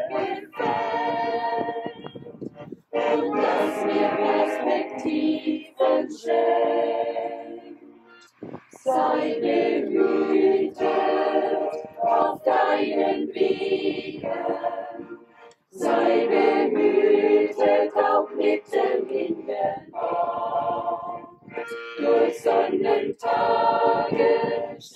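Church choir singing a hymn with accordion accompaniment, in several phrases separated by short breaks.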